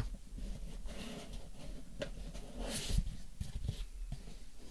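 Light handling noises of a cardboard box and its packaging being rummaged through: scattered soft knocks, with a short rustle of packaging about three seconds in.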